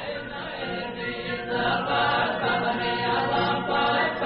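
A choir singing a Macedonian folk song in long held notes, growing louder about a second and a half in.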